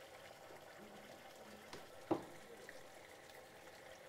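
Liquid nitrogen boiling in a Thermos container around a submerged lemon as it freezes it, a faint even bubbling hiss. One sharp tick about two seconds in.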